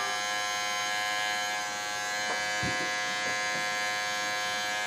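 Electric hair clippers with the guard off, buzzing steadily as the bare blade edge trims the hair around the ear.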